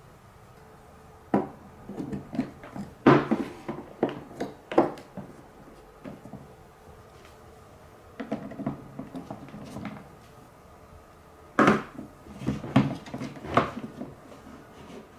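Marbles rolling and clattering down a TrixTrack wave-slope marble run: three runs of rapid clicks and knocks with short quiet gaps between them.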